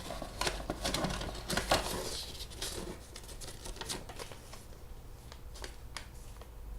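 Cardboard box and packaging being handled and opened: irregular rustles, crinkles and small clicks, busiest in the first couple of seconds and sparser afterwards.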